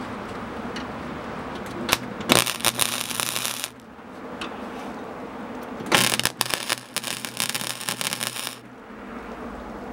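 MIG welder arc crackling on sheet steel in two bursts, welding up holes in a truck's inner door panel: a short burst of about a second and a half starting about two seconds in, and a longer one of about two and a half seconds later on. Each starts and stops abruptly.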